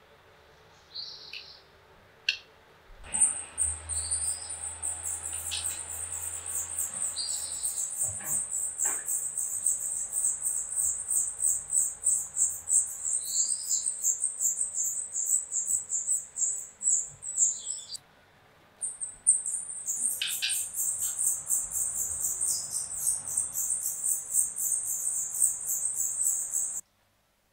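Shrill, rapidly pulsing insect song, with a few short bird chirps over it. The insect song starts about three seconds in, breaks off for a moment about two-thirds through, then resumes until it cuts off just before the end. A low hum sounds for a few seconds early on.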